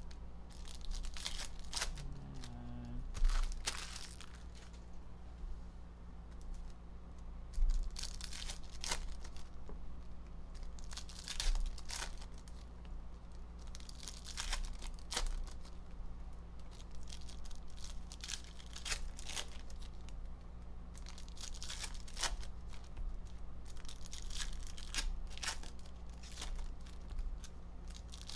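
Foil wrappers of Panini Mosaic Fast Break trading-card packs being torn open and crinkled, in repeated irregular bursts with sharp clicks, over a steady low hum.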